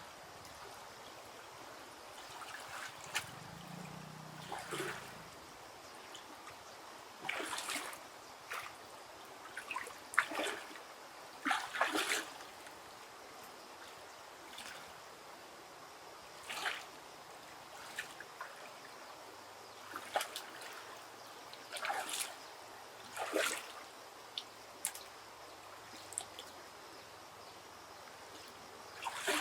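Water splashing and dripping in short, irregular bursts every second or two, over a faint steady background hiss.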